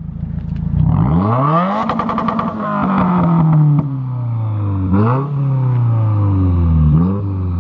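2018 Subaru WRX's turbocharged 2.0-litre flat-four, breathing through a MagnaFlow axle-back exhaust with the muffler deleted, revved while parked. The revs climb quickly about a second in, hang high, then sink slowly, with two quick blips of the throttle on the way down before dropping back toward idle.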